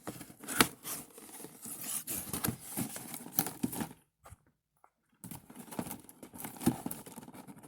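Cardboard and plastic packaging rustling, crinkling and scraping as hands pull the contents out of a toy box, with a pause of about a second in the middle.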